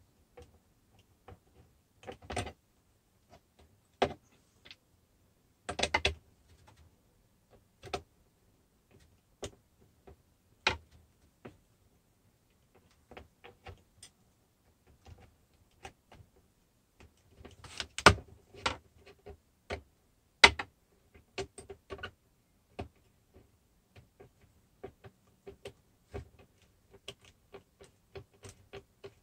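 Scattered clicks, taps and knocks of a metal cabinet pull and its screws being handled and fitted to a cabinet door. The knocks come in small clusters, busiest and loudest from about 17 to 21 seconds in.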